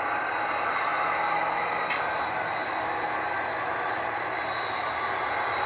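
Model trains running on a layout: a steady rushing rumble with a thin, even high whine over it.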